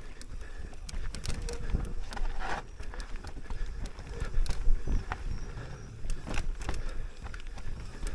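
Propain Ekano 2 CF e-mountain bike rattling and knocking as it descends a rough trail: tyres on stones and roots, with chain and frame clattering over a low rumble. A harder knock comes about halfway through.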